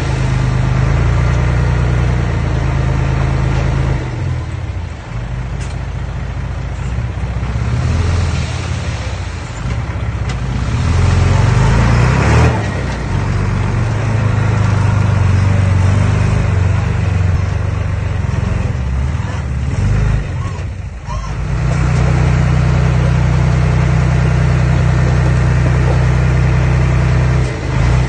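Diesel engine of earthmoving machinery running loudly, its note and load shifting as the machine works, with a brief dip about three quarters of the way through.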